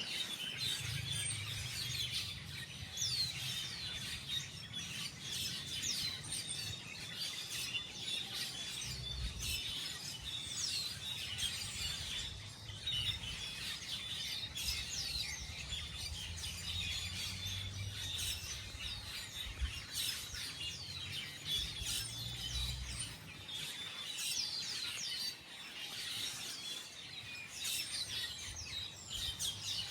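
Many small birds chirping at once, a constant chatter of short, quick high calls and sweeping notes, over a low rumble.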